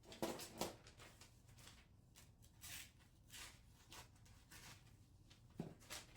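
Near silence with a few faint, brief rustles and taps of objects being handled, a couple near the start and a couple near the end.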